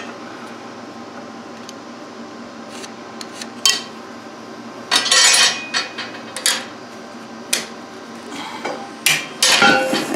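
Metal tools clinking and knocking against steel plate as it is marked out for cutting, several separate clatters over a steady hum.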